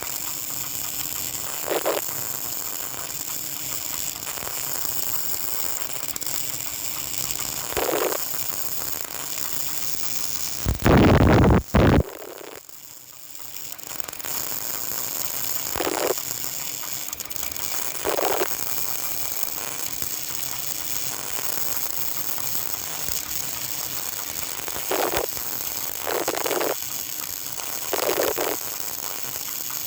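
Electric arc welding on a vertical (3G) test joint: a steady hiss and crackle from the arc, with short louder bursts every few seconds. About eleven seconds in there is a much louder burst of noise, then the sound drops for a couple of seconds before the hiss builds up again.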